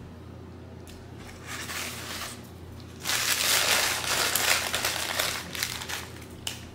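Brown paper takeout bag crinkling and rustling as it is handled, with a faint rustle early and a loud stretch of about three seconds in the second half.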